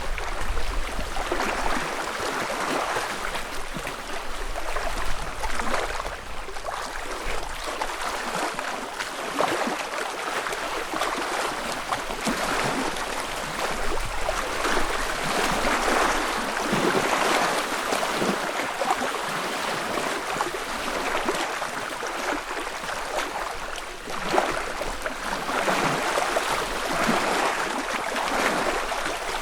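Small ripples lapping and splashing against a lake shore: a continuous wash of water that swells and eases every few seconds.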